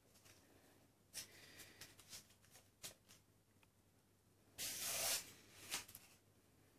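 A kitten scuffling on a wood-effect floor as it plays with a crumpled paper toy: faint scratches and rustles, with a louder brushing rustle of about half a second, about four and a half seconds in, as it rolls over.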